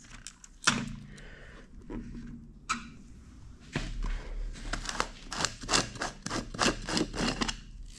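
Hard 3D-printed plastic being handled: a few separate knocks as boxes are set down and picked up. Then, from about halfway, a run of quick clicks and scrapes as the threaded plastic lid of a printed cylinder is twisted off.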